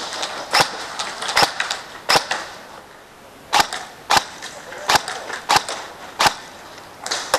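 Airsoft guns firing single shots: about eight sharp cracks, spaced roughly half a second to a second apart, with a short pause partway through.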